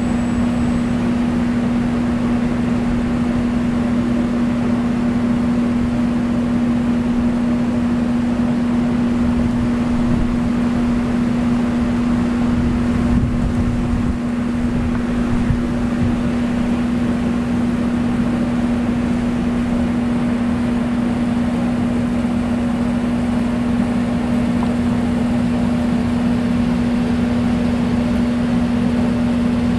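A steady machine hum, one constant low tone over a low rumble, unchanging throughout.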